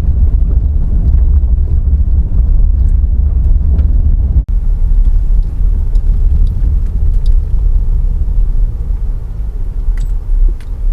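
Car cabin road noise while driving on gravel and dirt roads: a steady low rumble of tyres and body with a few faint ticks. It drops out for an instant about four and a half seconds in, then carries on slightly quieter.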